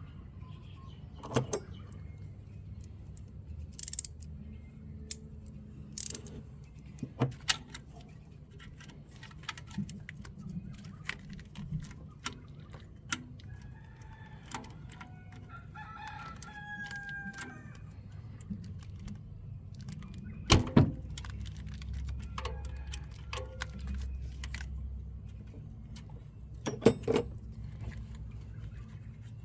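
A rooster crows midway through. Sharp metallic clicks and knocks come and go throughout from hand-wrench work on alternator bolts, over a steady low hum.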